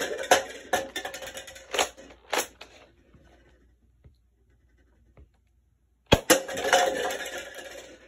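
Red plastic cups clattering as they are knocked over and tumble across a tabletop for the first two or three seconds. About six seconds in, a sharp crack from a Nerf Rival foam-ball blaster shot sets off another run of cups clattering down.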